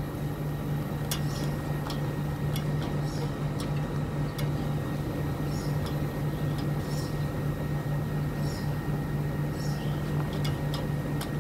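Panasonic R22 split air conditioner's outdoor unit running with a steady low hum from its compressor, which is working while refrigerant is charged in; a few faint ticks.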